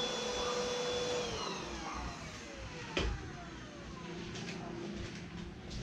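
Dibea ST1601 stick vacuum's motor whining steadily, then switched off a little after a second in, its whine falling in pitch as it spins down. A single knock about three seconds in.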